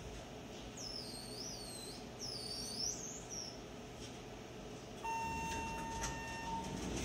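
Elevator car arriving at the landing: about five seconds in, a low hum rises and a steady arrival beep sounds for about a second and a half. Earlier, two short high warbling squeals.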